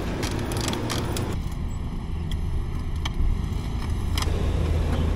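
Riding an electric bicycle in traffic: a steady low wind rumble on the microphone and road noise, with a car close alongside. Light clicks come and go throughout.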